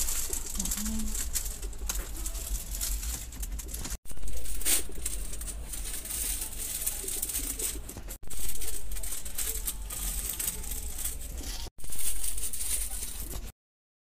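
Background noise of a shop: an even hiss with no clear voice or tone, broken by three abrupt cuts, each followed by a jump in level. It goes silent shortly before the end.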